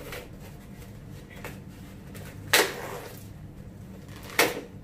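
A plastic tray of frozen shrimp tempura being handled: two short, sharp rustles, one about halfway through and one near the end.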